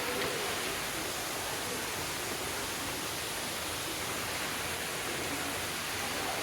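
Steady rush of a waterfall, an even wash of falling water.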